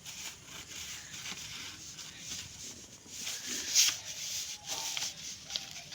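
A sheet of paper rustling and rubbing as it is handled and trimmed into a square, with one sharper crackle a little before the four-second mark.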